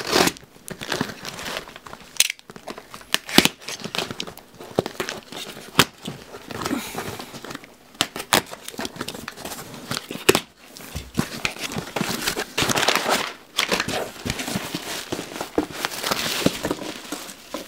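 A taped cardboard parcel being opened by hand and its crumpled brown packing paper pulled out: an irregular run of paper crinkling, tearing and sharp clicks, with longer rustles near the middle and the end.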